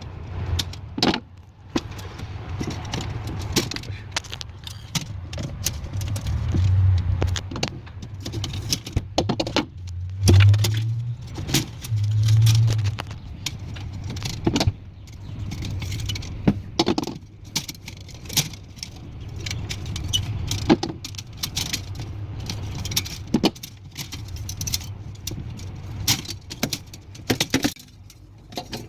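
Repeated sharp clicks and metallic clinks of tools and parts being handled while a failed aluminium defrost heater is replaced in a Samsung side-by-side refrigerator. Under them runs a low steady hum that grows louder briefly three times around the middle.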